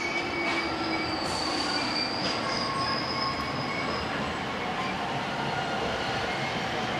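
Yamanote Line commuter train pulling into the station over a steady rumble. A thin, high squeal from the wheels and brakes starts about a second in and fades out about four seconds in.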